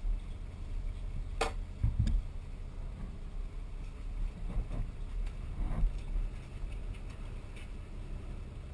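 Footsteps and knocks on a boat's fiberglass deck: one sharp click about a second and a half in, a thump soon after, and a few softer knocks a few seconds later, over the boat's steady low rumble.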